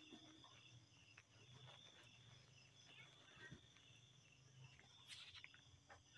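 Near silence: faint, steady high-pitched insect chirring over a low hum.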